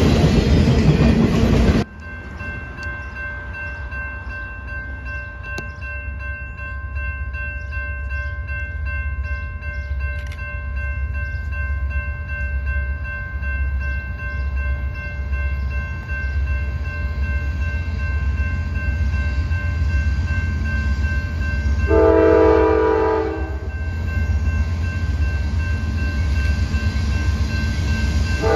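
Freight cars rumbling past for the first two seconds, then, after a cut, a grade-crossing bell ringing over the low rumble of an approaching CSX freight train. The locomotive's multi-chime air horn blows for about a second and a half some 22 seconds in, and again near the end.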